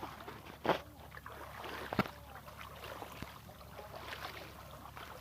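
Water sloshing and splashing, with two sharp sounds standing out, one under a second in and one about two seconds in.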